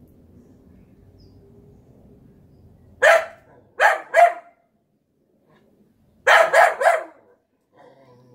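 A golden retriever–collie mix dog barking at an unfamiliar object, a zucchini. Three sharp barks come about three seconds in, then three more in quick succession a few seconds later.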